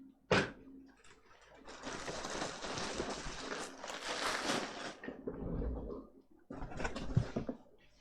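Hands handling laptop parts on a workbench: a sharp click, then about three seconds of rustling and scraping, then a few light knocks as parts are set down.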